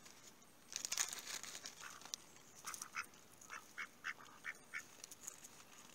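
Ducks quacking: a run of short quacks, about three a second, through the middle, after a brief rush of high noise about a second in.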